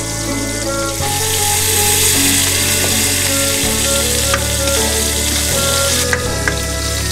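Hot oil sizzling steadily as pieces of food deep-fry in an iron wok, with a few sharp pops of spattering oil in the second half.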